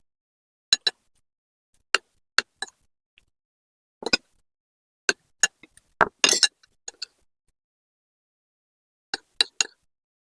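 Eating utensils clinking and tapping against dishes in a string of separate short clinks, with a quick cluster of them about six seconds in.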